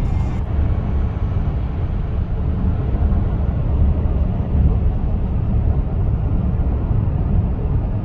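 Steady low rumble of road and engine noise inside a car's cabin while it drives along a highway.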